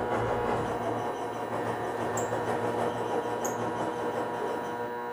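Servo drives of a Bridgeport Series 1 R2C3 CNC mill moving the table under the electronic hand wheel: a steady mechanical hum and whine made of many steady tones over a noisy bed.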